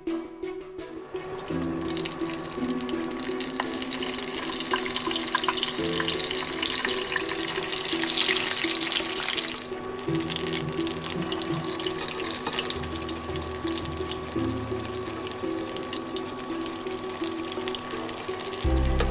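Potato patties frying in a pan of hot oil, a steady sizzling hiss that builds in the first seconds and is strongest through the middle, with background music underneath.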